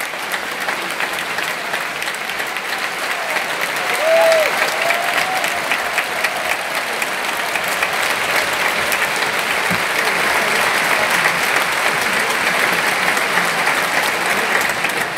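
Large concert-hall audience applauding in a sustained ovation, the clapping swelling a little in the second half, with one brief cheer rising above it about four seconds in.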